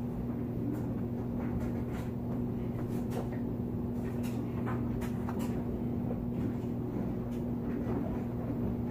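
A steady low hum, with scattered soft knocks and rustles of blankets as a child moves about on a bed.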